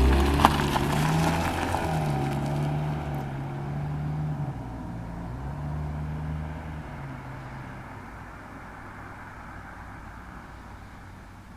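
Car engine and exhaust running, its pitch rising and settling a few times. It fades away over the last several seconds.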